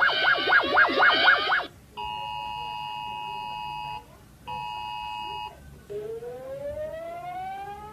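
A fast warbling electronic alarm tone cuts off about one and a half seconds in. Then the Emergency Alert System attention signal, a steady two-tone beep, sounds twice: about two seconds, then about one second. From about six seconds in, a siren winds up, rising in pitch.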